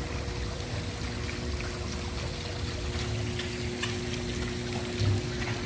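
Steady rushing noise, like running water, with faint steady hums underneath.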